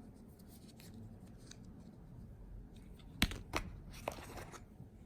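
Apple Watch box packaging being handled: paper and plastic rustling and rubbing, with a few sharp clicks or snaps a little over three seconds in and again around four seconds.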